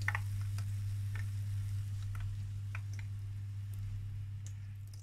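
Hot sunflower oil in a frying pan crackling with scattered pops that thin out as the bubbling subsides, over a steady low hum.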